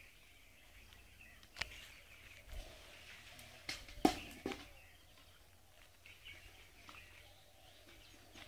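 Quiet outdoor ambience with a few short, sharp clicks and rustles, most of them in a cluster about four seconds in, and faint bird chirps.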